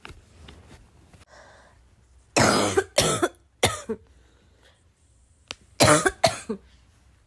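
A person with a bad cough coughing in two fits. An intake of breath comes first, then three loud coughs about two and a half seconds in, and two more coughs near the end.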